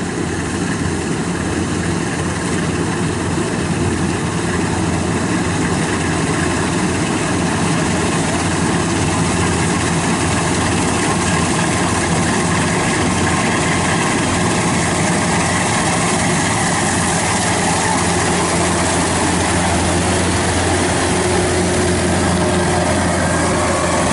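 Kubota DC-93 combine harvester's diesel engine running steadily, with a dense mechanical din over a low hum.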